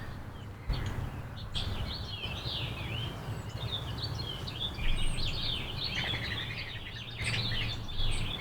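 Backyard songbirds chirping in quick, varied runs of notes over a low steady rumble.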